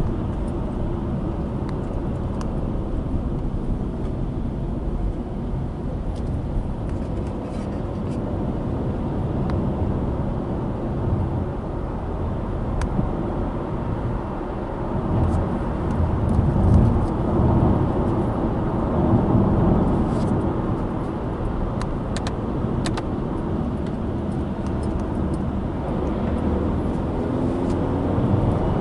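Road and engine noise of a Subaru Impreza Sport with its 1.6-litre FB16 flat-four, driving along: a steady low rumble of tyres and engine, with scattered faint clicks.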